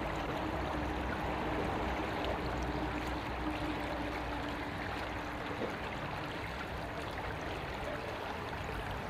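Field recording of a shallow river's water flowing and trickling steadily, with a faint low hum through the first half.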